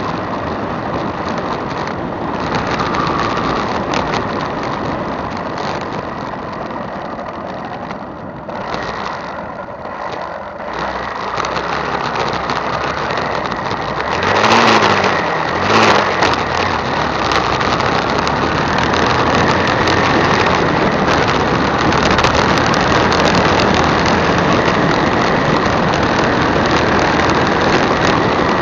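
Motorcycle on the move, heard through a handlebar-mounted action camera: steady wind rush over the microphone with the engine running underneath. The sound eases off for a few seconds about a third of the way in, and two brief louder surges follow about halfway through.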